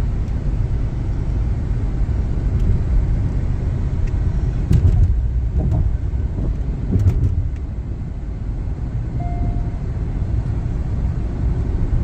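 Steady road noise heard inside a moving car's cabin: tyres and engine at cruising speed on a smooth expressway, with a couple of brief knocks near the middle.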